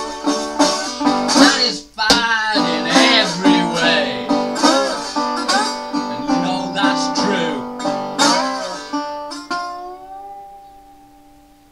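Metal-bodied resonator guitar fingerpicked in a blues figure, some notes sliding up and down in pitch. The last chord rings on and fades away over the final two seconds.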